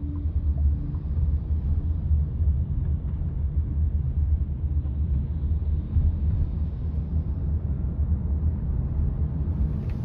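Low, steady road and tyre rumble inside a car's cabin as the car picks up speed along a city street.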